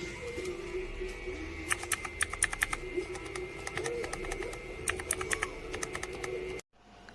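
Mechanical keyboard keys with Outemu MX switches being typed on: quick runs of sharp key clicks in two flurries, over steady background music. The sound cuts off suddenly near the end, then fainter clicking follows.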